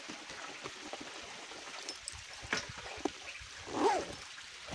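Water trickling and running over rock, with scattered clicks and rustles and a brief wavering call, rising then falling, near the end.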